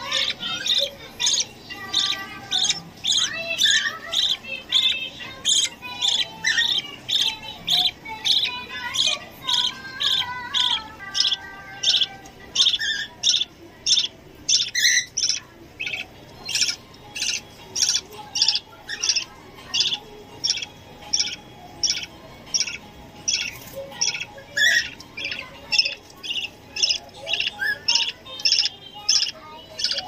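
Budgerigar chicks in the nest cheeping over and over in short, sharp, high calls, about two a second. Softer warbling chatter runs underneath in the first half.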